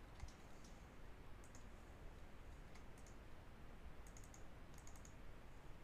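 Faint computer mouse clicks, several in quick pairs like double-clicks, against near silence as folders are opened in an FTP client.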